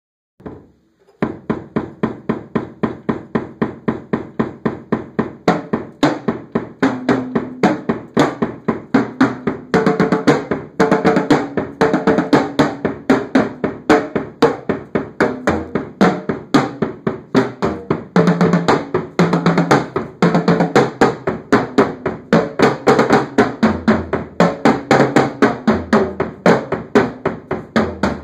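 Tama acoustic drum kit played in a solo: fast, dense strokes across the toms and other drums, with cymbals, starting about a second in and going on without a break.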